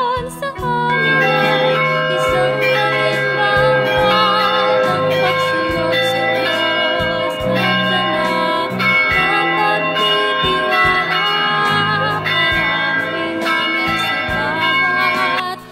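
Music: a slow melody of long held notes, with a slight waver, over a bass line of long low notes.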